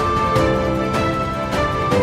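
Background music with a steady beat and sustained chords changing about every half second.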